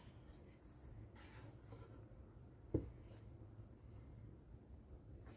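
Faint scratching and handling sounds as a clamp is set on a ukulele neck, with one short sharp click nearly three seconds in, over a low room hum.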